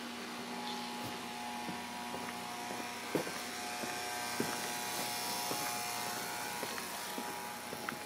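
Steady motor-like hum with a few thin held tones, and scattered soft clicks over it.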